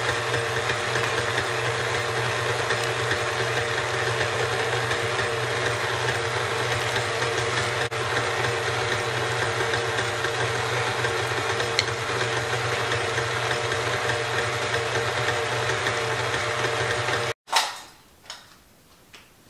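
KitchenAid Ultra Power stand mixer running steadily, its wire whip beating heavy cream and powdered sugar into whipped cream. The motor hum cuts off suddenly near the end.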